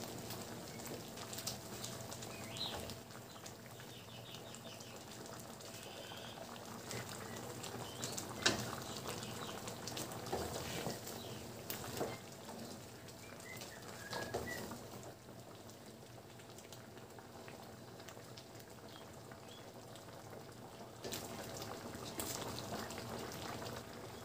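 Pork stew simmering in an aluminium wok, with a steady bubbling, and scattered clicks and scrapes from a wooden spatula stirring against the pan.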